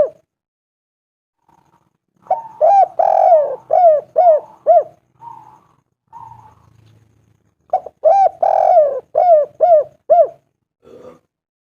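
Spotted dove cooing: two phrases, each a quick run of arched, hooting coos, a few seconds apart. There is a pause before the first phrase and a faint note near the end.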